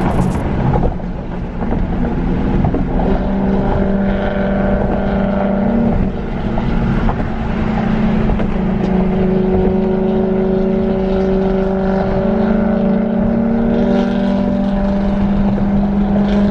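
A BMW E93 M3's V8 engine running steadily at cruising speed, heard from inside the cabin over a low rumble of tyre and road noise.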